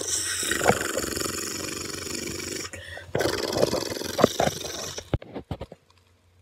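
Loud scraping, rustling handling noise from fingers rubbing over a phone's microphone while the lens is covered. It comes in two stretches with a short break between them, and a few knocks follow about five seconds in.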